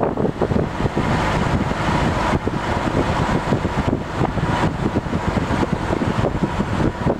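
Engine of a motorized outrigger boat (bangka) running steadily while under way.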